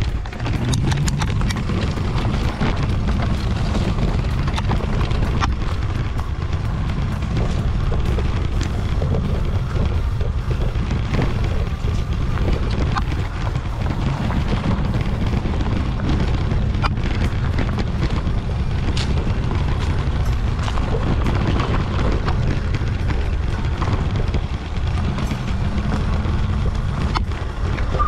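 Wind rumbling on a GoPro's microphone while riding an e-bike along a rough forest trail, with frequent short knocks and rattles from the bike going over bumps.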